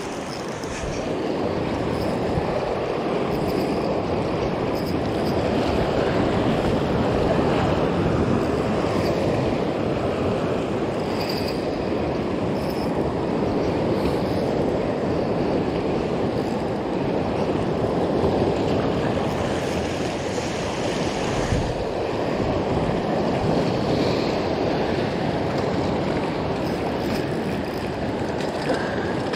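Sea surf washing over the rocks at the water's edge: a steady rush that swells and eases over several seconds.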